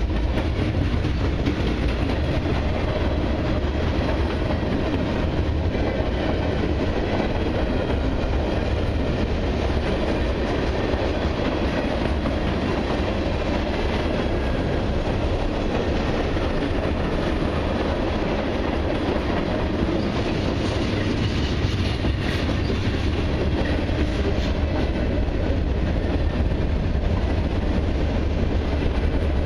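Freight cars of a long mixed freight train, mostly covered hoppers, rolling steadily past close by: a loud, even rumble and clatter of steel wheels on the rails.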